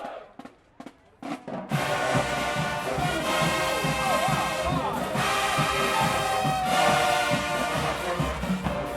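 Marching band brass and drums playing: a few sharp percussion hits, then the full band comes in loud just under two seconds in.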